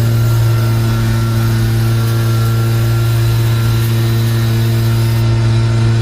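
Aerosol brake cleaner spraying in a steady hiss that stops about five seconds in, over a loud, steady electrical hum with its overtones.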